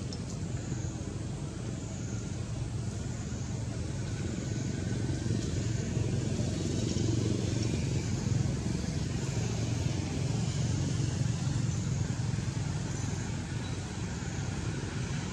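Steady low outdoor rumble, growing somewhat louder in the middle and easing near the end.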